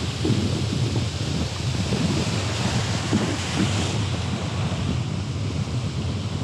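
Ocean surf breaking and washing up the beach, a steady hiss that swells for a while mid-way, with wind buffeting the microphone in low gusts.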